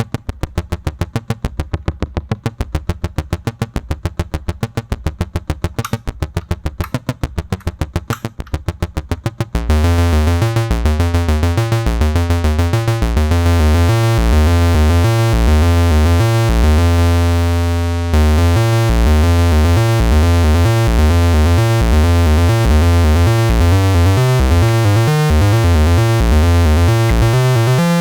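Behringer Crave monophonic analog synthesizer playing a step-sequenced arpeggio of rapid, short notes. About ten seconds in it turns louder and fuller with a heavier bass line; a held note fades before the sequence starts again near eighteen seconds.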